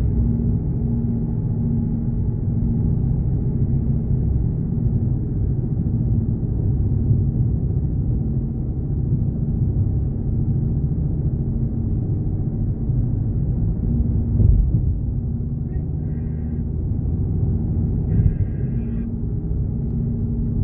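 Steady low road and engine rumble inside a car's cabin at highway speed, with a steady hum.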